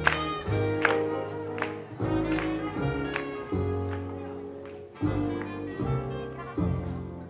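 Live swing jazz band playing: horns over a low rhythm section, with a steady drum beat.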